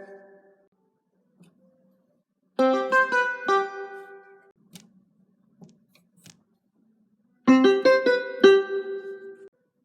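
The Samsung notification melody played twice, each time on a different instrument: a quick run of about five notes that then rings out, starting a few seconds in and again near the end.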